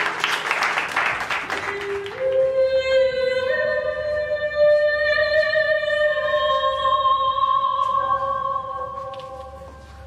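Brief applause, then music of long, high held notes that shift slowly in pitch and fade out near the end.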